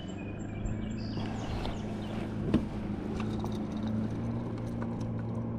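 Steady low hum of a small motor, with one sharp knock about two and a half seconds in and a few faint high chirps in the first second.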